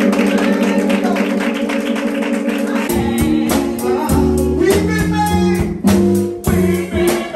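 Live church keyboard music: held, wavering organ-style chords, with deep bass notes coming in about three seconds in.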